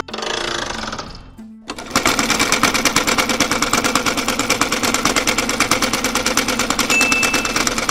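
Sewing machine running fast with a quick, even patter of stitching strokes. It stops just after a second in and starts again about half a second later.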